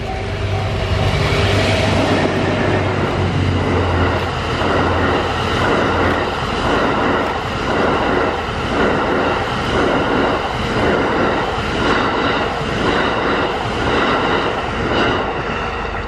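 EF81 electric locomotive and its E26 series passenger coaches passing at speed. A low hum comes from the locomotive in the first few seconds. After that the coaches' wheels clatter over the rail joints in a steady rhythm, a pair of bogies going by about every second.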